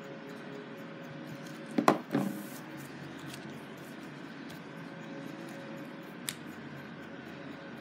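A screwdriver set down on a workbench covered with paper towels: two quick knocks close together about two seconds in, followed by a brief hiss, then a single light tick later on.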